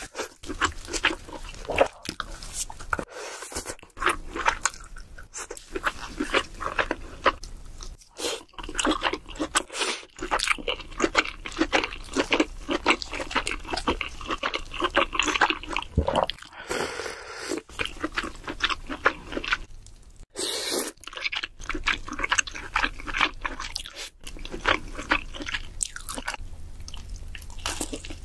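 Close-miked eating of boiled king crab: wet chewing and crunching as meat is pulled from the shell and bitten, with many quick sharp clicks and a few brief breaks between clips.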